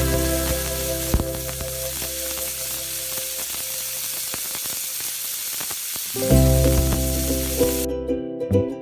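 Hot oil sizzling with small pops as food fries in a miniature pan; the sizzling cuts off suddenly near the end.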